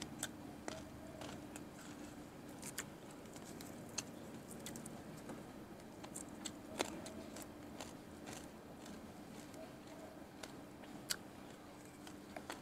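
Close-up eating sounds: scattered soft crunches, clicks and mouth noises as a man chews and handles food by hand, over a faint steady hum.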